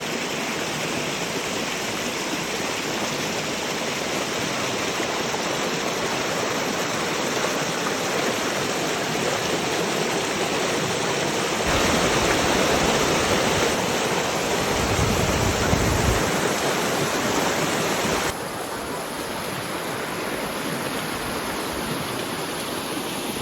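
Uracher Waterfall, a steady rush of falling water. It grows louder with a deep rumble in the middle, then drops suddenly to a lighter rush.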